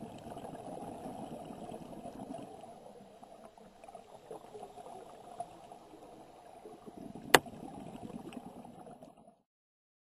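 Underwater sound through a diving camera housing: a scuba diver's exhaled bubbles gurgling and rumbling in surges, with one sharp click about seven seconds in. The sound stops abruptly near the end.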